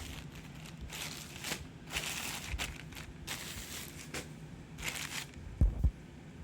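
Packaging crinkling and rustling in several separate bursts as a package is handled and opened, with a single low thump about five and a half seconds in.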